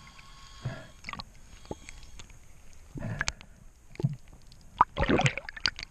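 Muffled splashing and bubbling heard underwater, coming in irregular bursts as a swimmer kicks with fins near the surface.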